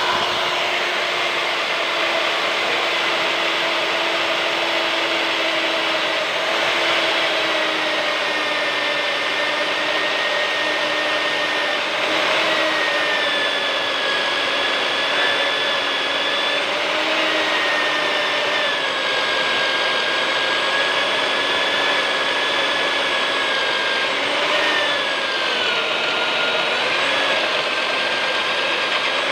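Magnetic drill's electric motor running steadily as it bores through thick steel plate. It makes a whine whose pitch sags slowly under the load of the cut, with a brief dip a few seconds before the end.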